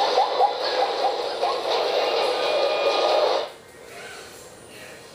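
Movie trailer soundtrack playing through a portable DVD player's small built-in speaker. It cuts off sharply about three and a half seconds in as the trailer ends, leaving a faint steady hiss.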